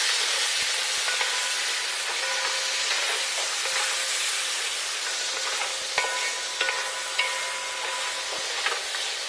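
Raw chicken pieces sizzling in hot oil in a wide metal pan as a wooden spoon stirs them. From about six seconds in, a few sharp knocks of the spoon against the pan leave it ringing briefly.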